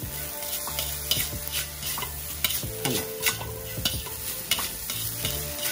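Rice frying in a hot steel kadai, sizzling while it is stirred and tossed with a utensil, with short scrapes and taps of the utensil against the pan every fraction of a second. A steady low hum runs underneath.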